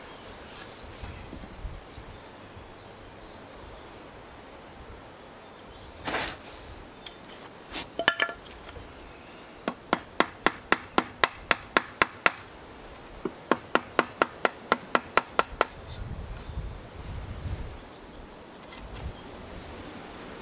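Wooden mallet striking a chisel to chop waste out of a joint in soft pallet wood: a few harder knocks, then two quick runs of sharp taps, about five a second.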